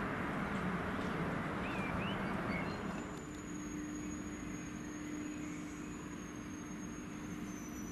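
Dresden funicular car in motion: first an even rushing running noise, then, about three seconds in, a quieter steady low hum with a thin high whine as the car rolls slowly into the station.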